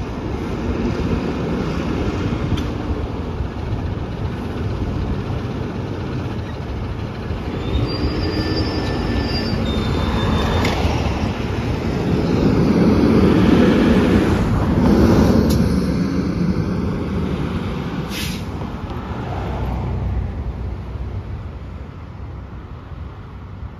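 A fire ambulance and a fire engine running as they pull out of the station and drive off, a steady diesel engine rumble that grows louder as they pass about halfway through, then fades as they move away down the street.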